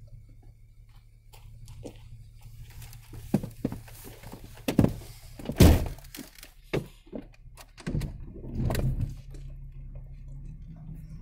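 A string of thunks and knocks inside a vehicle cab over a steady low engine drone. The loudest knock comes a little past halfway, with a cluster of rattling knocks near the end.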